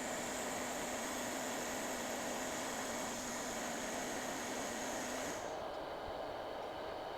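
Steady hiss of a hot air rework station blowing, with a low hum and a thin high whine; about five and a half seconds in the whine and the sharpest part of the hiss cut off suddenly, leaving a softer hiss.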